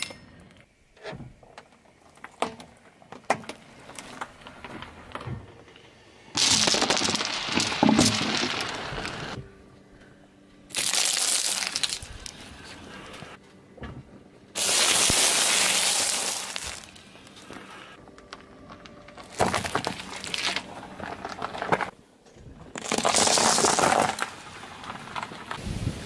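A car tyre rolling over objects on asphalt and crushing them, including a plastic toy xylophone and a box of wafer sticks. It comes as five loud spells of cracking and crunching, each a second or two long, with quieter gaps between.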